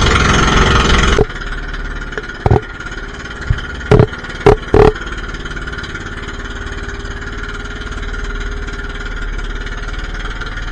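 Outrigger boat's engine running loudly, then much quieter about a second in, where it settles to a steady low hum. Several loud knocks come between about two and five seconds in.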